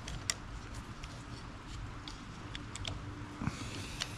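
Faint, scattered plastic clicks and ticks from a new windshield wiper blade's connector being handled and worked onto the hooked end of the wiper arm, over a low steady hum.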